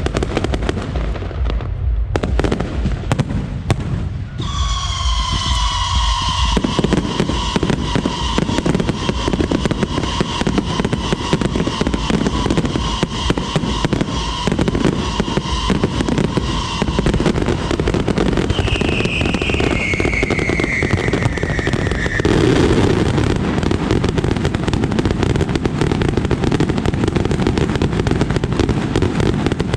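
Aerial fireworks going off in a dense, continuous crackle of bangs and pops. A held high tone sounds over it for much of the first half, and a falling whistle comes in past the middle.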